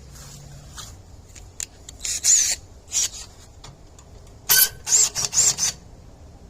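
Short, harsh scraping strokes, metal rasping against metal: one or two about two seconds in and one at three seconds, then four in quick succession near the end, some with a brief squeal.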